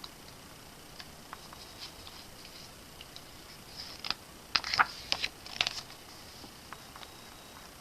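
Glossy photo book pages being handled and turned, with soft rustles and scattered light clicks and taps, and a quick cluster of sharper page flicks about four to six seconds in.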